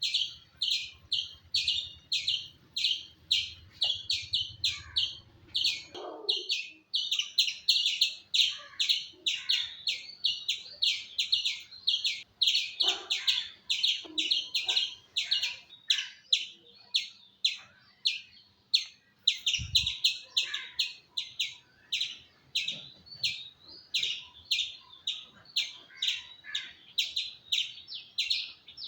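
Palm squirrel calling in a long unbroken run of sharp, high-pitched chirps, about three a second, steady in rhythm.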